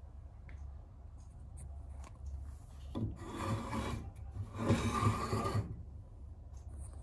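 Wooden-bodied antique jack plane being handled and turned on a wooden workbench top, wood rubbing on wood in two scrapes of about a second each.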